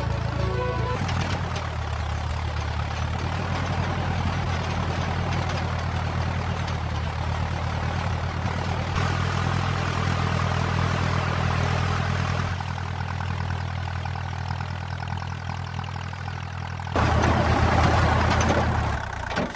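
Tractor engine running with a steady low drone. The drone shifts abruptly a few times, grows louder about three seconds before the end, and then cuts off suddenly.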